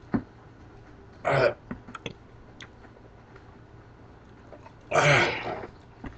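A man clears his throat with two short grunts, about a second in and again about five seconds in, while chewing a whole lemon with its tough peel. Faint wet mouth clicks come between them.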